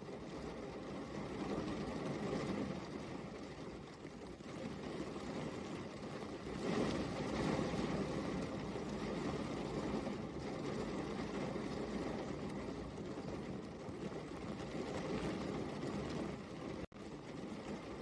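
Steady rain, an even hiss that swells and eases slowly in loudness, with a momentary dropout near the end.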